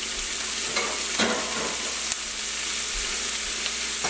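Chopped red onion, garlic and dried chillies sizzling in sesame oil in a nonstick pan as the onions sauté down: a steady frying hiss with a few light crackles.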